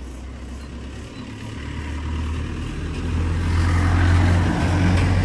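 Pickup truck driving past, its engine sound building up and loudest about four seconds in.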